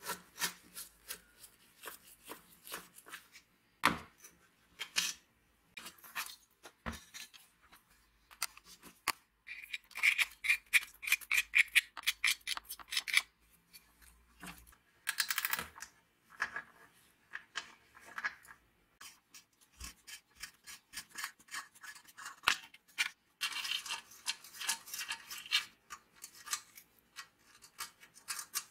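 A screwdriver scraping and prying at rusted steel, with many small clicks and taps of metal parts being handled as the heater is taken apart. There are runs of quick scraping strokes a little before the middle and again near the end.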